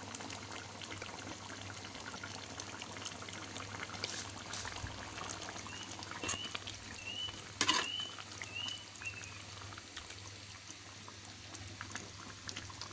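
Beef rendang simmering in oil and coconut milk in a pan, bubbling and crackling steadily, with one sharp knock a little past the middle.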